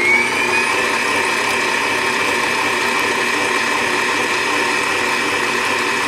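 KICHOT 800W stand mixer running with its wire whisk beating heavy cream. The motor's whine rises in pitch in the first second as the speed dial is turned up toward high, then holds at a steady pitch.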